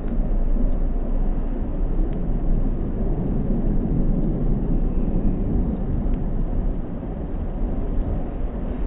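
Hankyu Railway electric train running, a steady low rumble with a few faint clicks.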